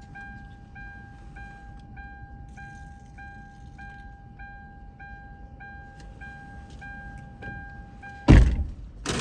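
Car's warning chime dinging about three times every two seconds over a steady tone, as when a door is left open. About eight seconds in it cuts off with a heavy thunk of the car door shutting.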